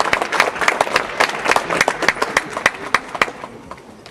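Audience applause, many hands clapping, dying away about three seconds in.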